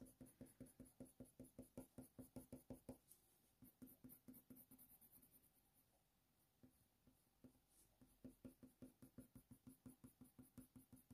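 Faint, quick back-and-forth strokes of a Faber-Castell Polychromos coloured pencil on hot-press watercolour paper, about five a second. The strokes thin out to a few in the middle and start again for the last few seconds.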